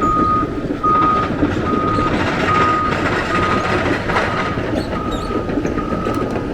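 Heavy vehicle's reversing alarm beeping at a single steady pitch, about one beep every 0.8 seconds, over the low rumble of its running diesel engine.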